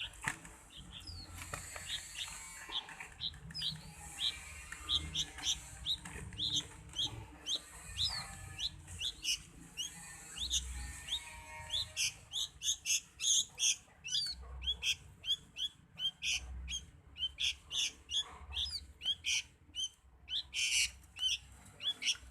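Pet songbird chirping as it is fed crickets: short, sharp chirps, a few at first, then coming quickly, several a second, from about halfway through.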